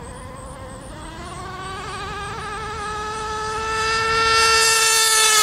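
Nitro RC racing rigger boat's CMB .91 two-stroke glow engine buzzing at a high pitch at speed, growing steadily louder as the boat approaches, its pitch rising slightly.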